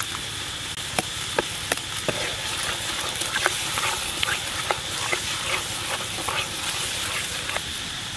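A metal ladle stirring curry sauce in a metal pan, with many short clicks and scrapes of the ladle against the pan, over a steady sizzle of the sauce cooking.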